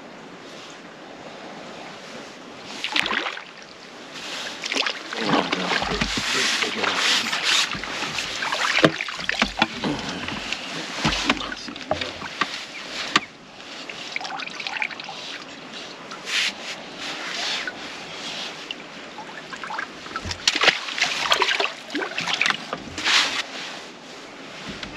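Irregular bursts of splashing, rustling and knocking as a netted fish is handled in a landing net and among the tackle at the water's edge. The noise is busiest from about five to thirteen seconds in and again around twenty-one seconds in.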